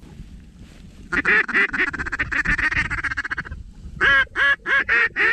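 Mallard duck call blown close by, calling to incoming ducks: a rapid chattering feed call for a couple of seconds, then a quick series of loud, evenly spaced quacks.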